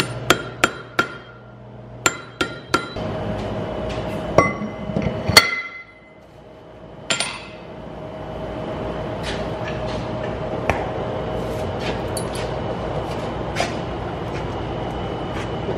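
Blacksmith's hand hammer striking red-hot steel on an anvil, each blow ringing. The blows come in two quick runs of three in the first three seconds, then a few single heavier strikes. After that a steady rushing background noise with a few faint clinks.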